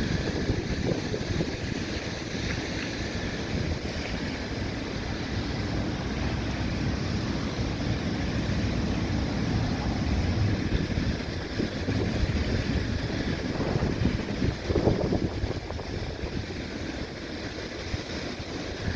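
Wind buffeting the microphone in a steady, gusting low rumble, with waves washing on the bay.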